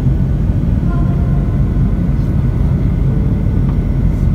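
Steady low rumble of engine and airflow noise inside a passenger airliner's cabin during its descent.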